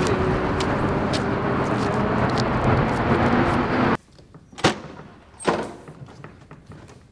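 Steady city street traffic noise with a few sharp clicks, cutting off abruptly about four seconds in to a quiet room, where two sharp knocks sound about a second apart.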